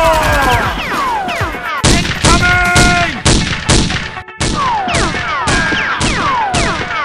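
Dubbed-in action-film gunfire effects: sharp pistol shots about two a second from about two seconds in, with falling ricochet whines throughout.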